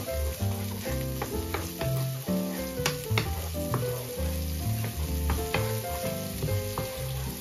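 Diced onions sizzling in a frying pan as a wooden spatula stirs them, with background music and its bass line playing over it.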